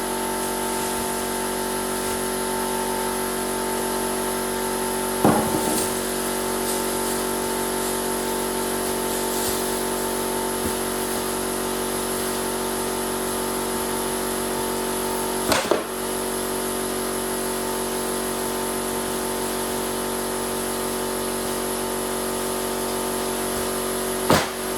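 Small air compressor running steadily with an added tank attached, a loud, constant, grating hum. There are short knocks about five seconds in, near the middle and near the end.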